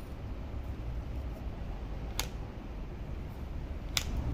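Steady low hum with two sharp clicks, one about two seconds in and one near the end.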